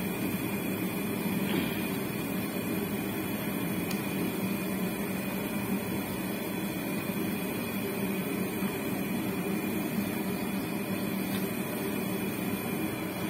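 Steady machine hum with a low drone and an even level, with a couple of faint knocks.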